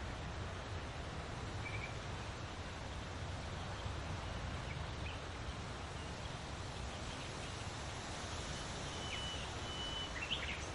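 Wind through large leaves, a steady rustle with a low rumble beneath it. A few faint bird chirps come through, with two short whistled notes and a quick burst of chirps near the end.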